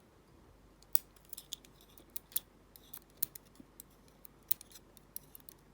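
Irregular small, sharp metallic clicks and taps of tiny lock parts being handled: stainless steel spool driver pins taken out of a padlock cylinder one at a time.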